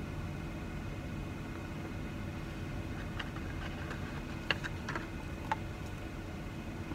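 Drink-mix powder being poured from a paper packet into a plastic water bottle, with a few light clicks and rustles about halfway through, over a steady low rumble.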